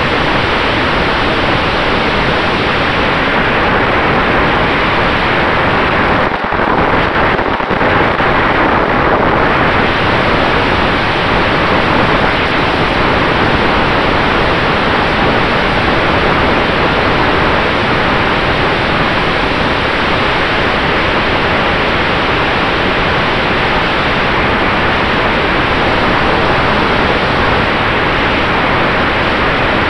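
Steady loud rush of wind and propeller noise on the onboard camera microphone of an RC model Maule airplane in flight, with a faint steady tone from the motor underneath. It dips briefly about six seconds in.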